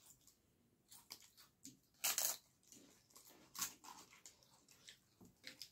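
Close-miked eating sounds: crisp fried papad being broken and crunched, with short crackles, the loudest about two seconds in, between quieter sounds of food being handled and chewed.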